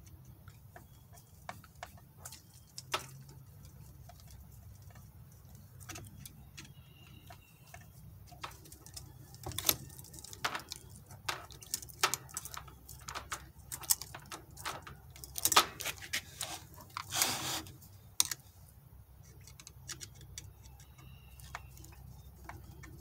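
Small metallic clicks and jangles of a saw chain being handled and fitted around a chainsaw bar, with a screwdriver clicking against the bar mount. The clicks are sparse at first, grow busier about ten seconds in, and include a longer rattle of about a second near the end.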